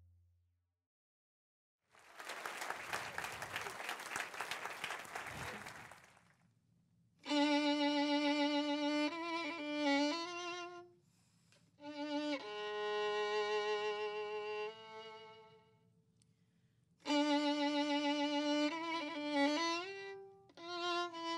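Audience applause for about four seconds, then a solo violin playing a slow melody in long, held notes with vibrato, phrase by phrase with short pauses between.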